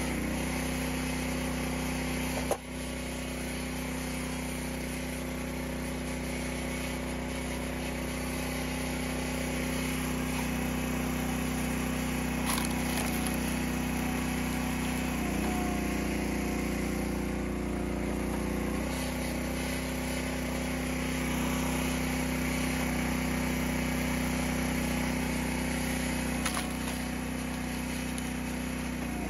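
Small gas engine of a RuggedMade 28-ton hydraulic log splitter running steadily, its note shifting a few times as the hydraulic ram works a water oak split against the wedge. A sharp click comes about two and a half seconds in, and a few fainter knocks come later.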